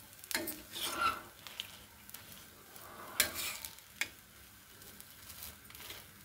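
Poha dosa frying on a tawa with a low, steady sizzle, while a metal spatula scrapes against the pan a few times, loudest about three seconds in.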